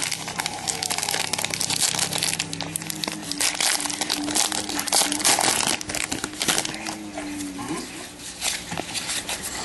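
Plastic wrapping on a box or packs of trading cards being torn open and crinkled by hand, a dense, irregular crackling.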